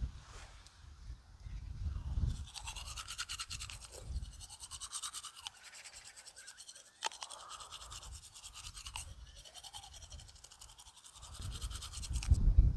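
Fast, continuous scrubbing strokes for about ten seconds, with a low rumble on the microphone at the start and again near the end.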